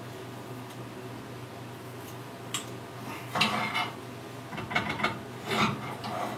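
A few short metallic clanks and scrapes, starting with a click a little before halfway and clustering in the second half, as a piece of metal pipe is set into the V-groove of a small crank-handled mini vise and clamped.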